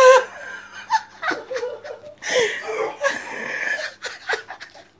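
A person laughing hard in breathy, stuttering bursts, with a short high voiced laugh at the start.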